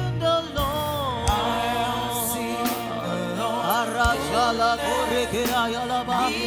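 Live gospel praise music: voices singing a flowing melody over a band with a steady low bass.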